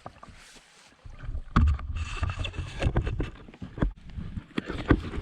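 Knocks and bumps on a kayak, with low wind rumble on the microphone, starting about a second in.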